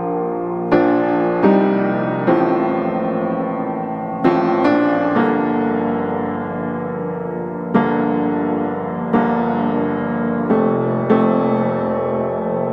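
Background music: slow piano playing sustained chords, with new notes struck every second or so.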